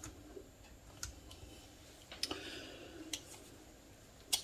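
A few faint, sharp clicks of a screwdriver and small parts being handled on a lever-action rifle during reassembly, about one a second, with the loudest click near the end.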